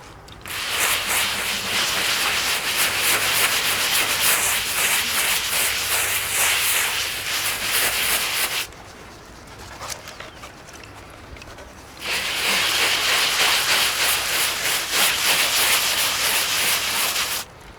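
Hard scraping and rubbing against a cement wall surface, in two long spells of quick strokes with a pause of about three seconds between them.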